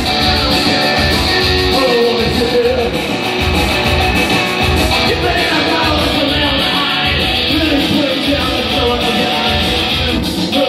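Loud live rock music: an electric guitar played over a steady low beat, with a man singing.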